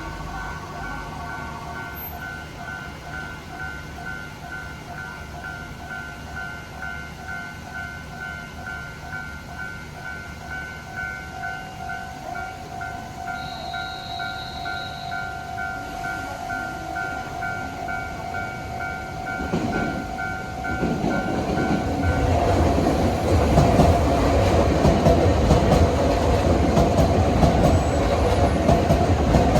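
Japanese railroad crossing's warning bell ringing in an even, repeating ding-ding, with a brief high tone about 13 seconds in. From about 20 seconds a Keisei Line train approaches and passes, its wheels clattering over the rail joints, louder than the bell.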